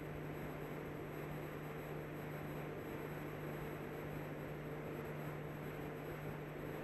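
Background of an old recording with no voice: a steady hiss and a low electrical hum.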